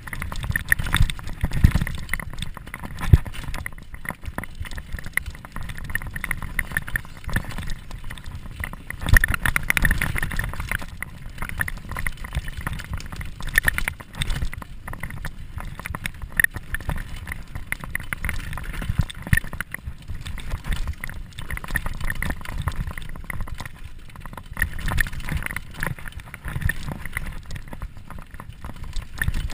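Downhill mountain bike riding down a dirt trail: a continuous rumble of tyres on dirt, with irregular knocks and rattles from the bike as it hits bumps.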